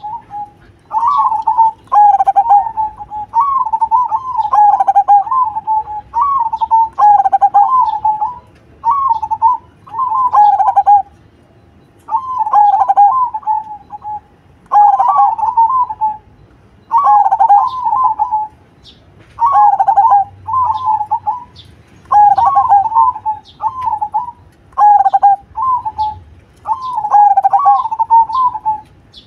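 Zebra dove (perkutut) singing its cooing song: quick warbling phrases about a second long, repeated roughly every two seconds.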